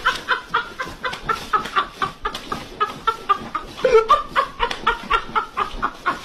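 Chicken-like clucking: short calls repeated about four times a second, with one louder, lower call about four seconds in.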